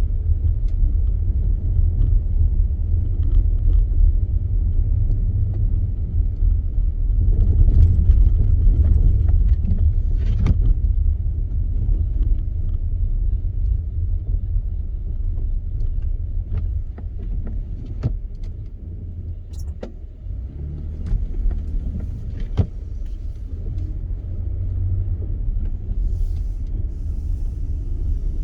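A car driving on snowy roads, heard from inside the cabin: a steady low road-and-engine rumble with scattered light clicks and knocks.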